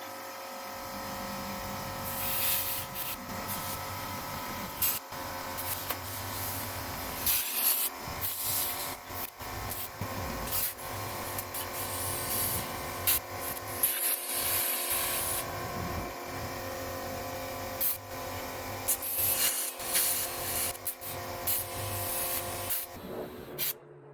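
Small air compressor running steadily while air hisses in repeated bursts, inflating a three-wheeler tire whose bead will not seat on the rim. The running stops abruptly near the end.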